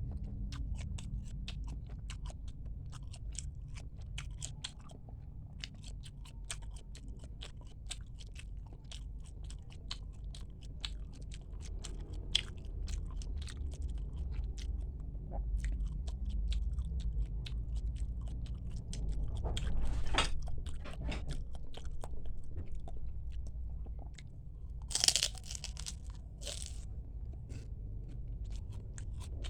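Close-miked chewing and eating sounds of a person eating bakso meatball soup: many small wet clicks and crunches of the mouth, over a steady low hum. Near the end there is a short, louder noise.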